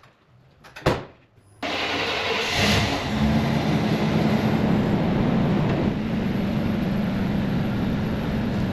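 A truck door shuts with a thump, then an old square-body Chevy Suburban's engine starts abruptly and runs steadily as the truck pulls away.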